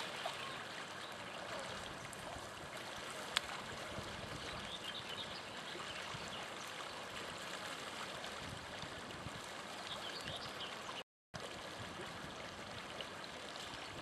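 Steady outdoor rushing of wind and water, with one sharp click about three seconds in. The sound drops out completely for a moment about eleven seconds in.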